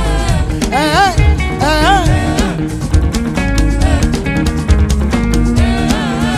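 Live band music with singing: a wavering, ornamented sung phrase about a second in and another near the end, over drums, plucked-string lines and a steady bass beat.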